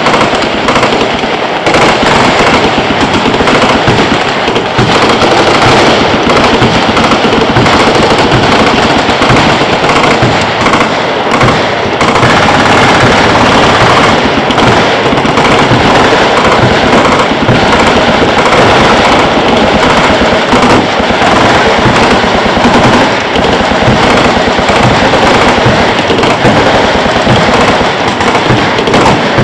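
Massed automatic gunfire: many machine guns on a firing line shooting at once, a dense, unbroken rattle of overlapping bursts. The recording is heavily clipped.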